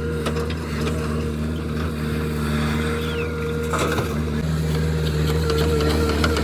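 Heavy diesel engine running steadily under load, with scattered clanks and a louder knock about four seconds in.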